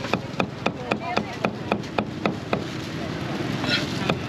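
A cleaver chops grilled beef on a thick round wooden chopping block in quick, even strokes, about four a second. It stops for about a second and a half past the halfway point, then starts again at the end.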